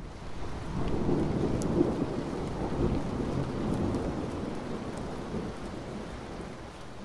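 Thunderstorm sound effect: rain with a long rolling rumble of thunder that swells about a second in and slowly dies away.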